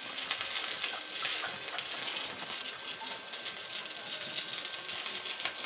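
Stick (MMA) welding arc from a Mitsushi 300S inverter welder, crackling and hissing steadily as the electrode burns, breaking off near the end. The arc is melting through the poor-quality steel instead of joining it.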